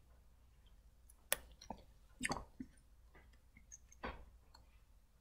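Faint sounds of a person tasting soup from a spoon: a sharp spoon click about a second in, followed by short, soft sipping and mouth sounds, with one more soft noise near the end.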